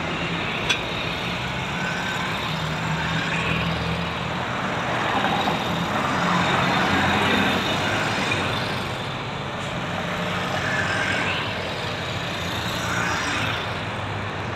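Road traffic going by: Ural flat-twin sidecar motorcycles and cars passing with engine and tyre noise, swelling several times as each vehicle goes past. A single sharp click under a second in.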